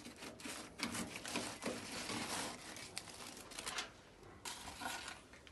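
Aluminium foil crinkling and rustling as a foil tray is lifted and slid off a barbecue grate with a wooden spatula, in a run of crackles and scrapes with a second burst near the end.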